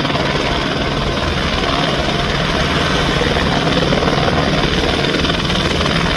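Airbus AS350-type light helicopter hovering low and close: the steady beat of its rotor blades over the rush of its turbine, holding even throughout.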